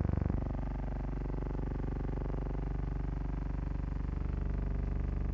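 Steady droning hum of aircraft engines in flight, heard from inside the fuselage, with a slight shift in tone about a third of a second in.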